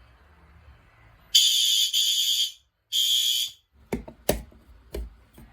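Fire alarm horn, of the horn-strobe kind, sounding three short, loud, high-pitched blasts, the first two nearly run together: the brief sounding given during a walk test. A few sharp knocks follow near the end.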